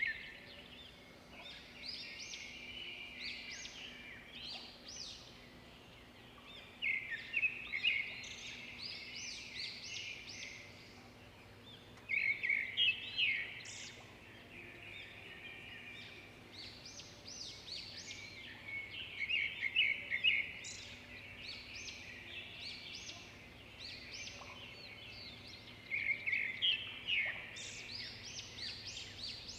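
Birds chirping: bursts of rapid high chirps that recur every six or seven seconds over a faint steady low hum.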